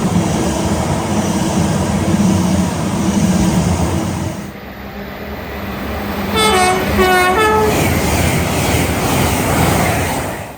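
Loud running noise of a passing train with a steady hum, which drops off abruptly about four and a half seconds in. A train's two-tone horn then sounds in short notes alternating between a higher and a lower pitch, between about six and eight seconds in, over the rumble of the train, and the sound cuts off suddenly at the end.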